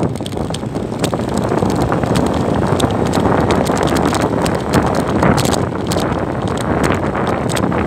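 Wind buffeting the microphone over the road noise of a moving motorcycle, with frequent sharp clicks and rattles.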